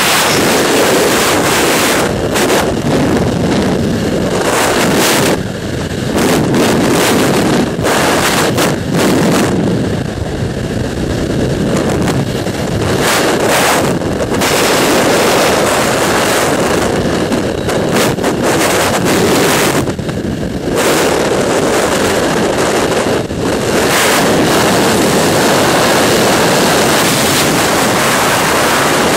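Freefall wind rushing over a skydiving camera's microphone: a loud, steady roar that eases briefly every few seconds as the camera turns in the airflow.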